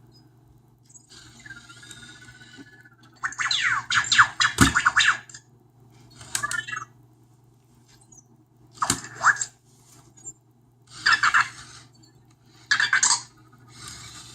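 Anki Vector robot making a series of short electronic sounds and whirs, some gliding up or down in pitch, with a sharp click about four and a half seconds in.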